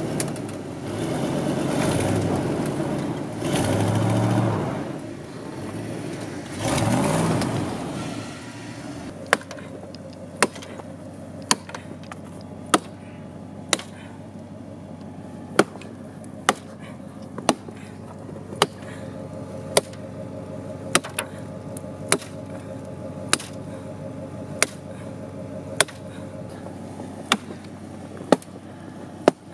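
Ford F-250 pickup's engine revving in three or four surges as the truck, stuck in snow, tries and fails to pull free. Then an axe chops into a wooden log under the truck, one sharp strike about every second, with the engine idling steadily underneath.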